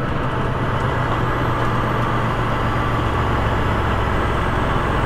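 Tractor-trailer's diesel engine running steadily with road noise, heard from inside the cab as the truck drives.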